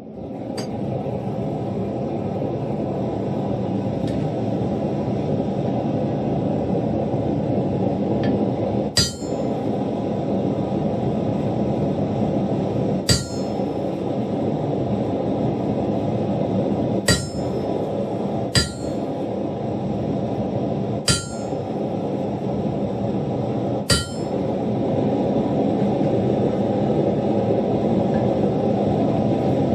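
Steady roar of a blacksmith's forge running, with six sharp, ringing metal clinks spread through it from about nine seconds in.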